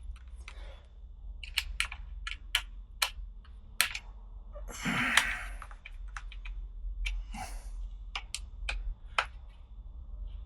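Irregular light clicks and taps of a hand tool working small Torx screws back into the motorcycle's headlight fittings, with a short louder rustle about five seconds in.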